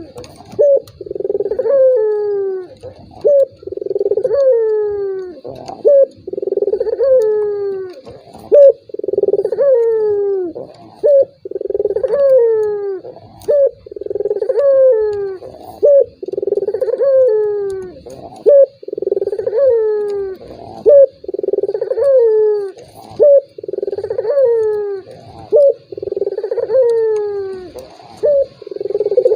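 Puter dove (Barbary dove) cooing over and over, about one coo a second, each coo ending in a falling note. It is a lure call meant to set other puter doves cooing.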